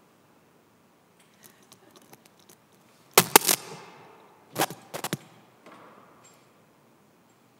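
A few sharp knocks and clatters that echo in a large, reverberant room: faint ticks about a second in, then a loud cluster of knocks about three seconds in and a second cluster about a second and a half later.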